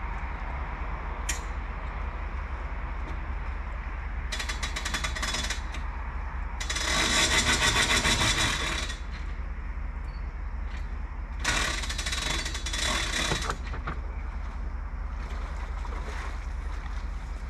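Boat trailer's hand-crank winch ratcheting in three bursts of rapid clicking, the middle one the longest and loudest, as the boat is cranked up onto the trailer.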